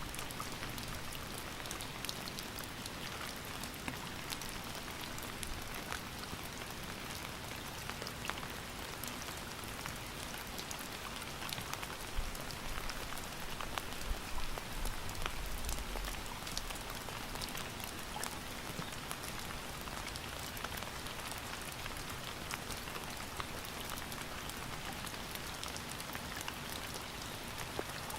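Steady rain falling, a constant hiss with many individual drops ticking on a surface, a little heavier about halfway through.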